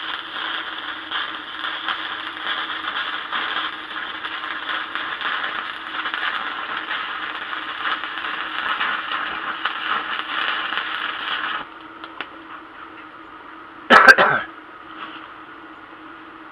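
Electric arc welding on steel: the arc's steady crackling sizzle as a weld bead is laid, cutting off suddenly about three-quarters of the way through. A steady low hum runs underneath, and near the end there is one loud knock.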